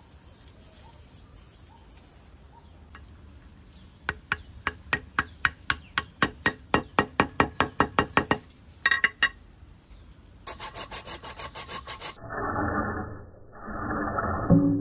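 Hand file rasping in quick, regular back-and-forth strokes, about four or five a second. After a short pause, a faster run of strokes follows.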